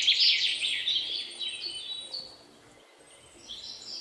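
Birds chirping: a dense run of quick, high, falling chirps that thins out and drops away for about a second after the middle, then picks up again near the end.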